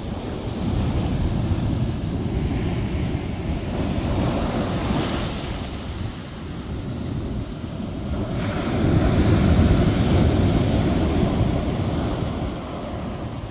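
Ocean surf breaking and washing up a sandy beach, swelling and easing with each wave and loudest a little past the middle, with wind buffeting the microphone.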